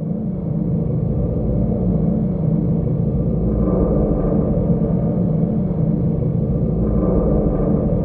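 Dark suspense drone sound effect: a deep, steady rumble with low sustained tones, still rising in level in the first second, then holding, with two slight swells higher up.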